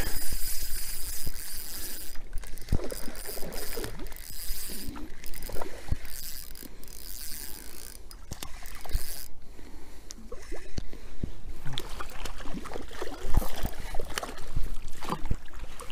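Spinning reel being cranked to bring in a hooked fish, a steady run of rapid gear clicking and rattling. Near the end the fish splashes as it is drawn into the landing net.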